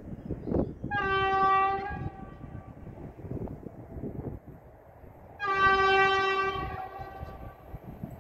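Horn of a PKP EP07 electric locomotive sounding two steady single-pitch blasts about four seconds apart, the second one longer, as the train approaches.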